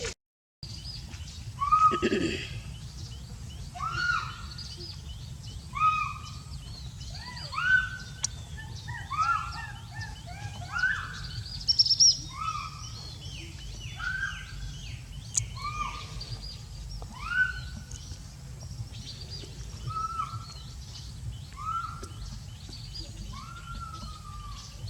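An animal calling over and over, each call a short rise and fall, about one every one to two seconds, over a steady low rumble.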